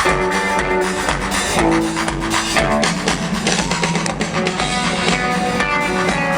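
Rock band playing live in a large arena: electric guitar, bass and drum kit, with sustained notes and a pitch-bending line about midway through.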